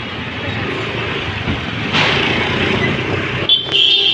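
Busy market street noise with traffic. About three and a half seconds in, a steady high-pitched tone starts and holds.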